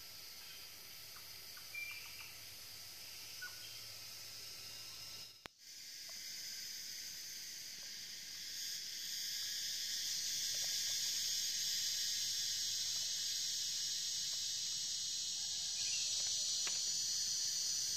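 Steady high-pitched insect chorus, swelling about ten seconds in and then holding, with a few faint chirps before it.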